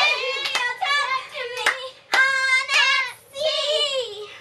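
Young girls singing in high voices, with several sharp handclaps between their phrases.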